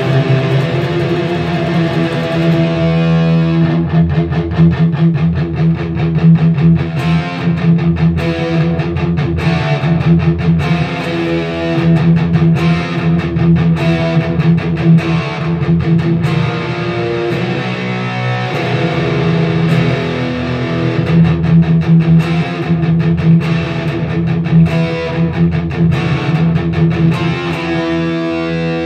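Electric guitar played through a Little River Customs Stranger Things fuzz delay pedal, into a Randall RH150 head on its clean channel: continuous fuzzy chords and fast picking.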